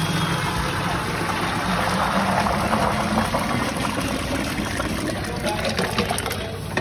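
Thick pav bhaji vegetable curry poured from a large steel pot into a steel drum in a steady stream, with voices talking underneath.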